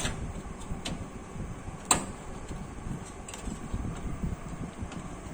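A motherboard being fitted into a steel PC cabinet: scattered light clicks and knocks of board and metal case, with one sharper knock about two seconds in.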